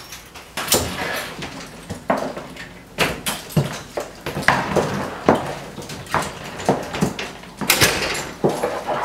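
An apartment door being unlocked and opened: a run of irregular clicks, knocks and rattles.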